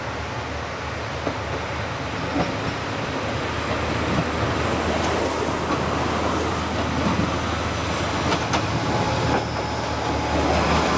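JNR-era KiHa 40 diesel railcar moving through the station, its engine a steady low drone under a rising rush of wheels on rail, with sharp clicks as the wheels cross rail joints. It grows louder as the railcar comes closer.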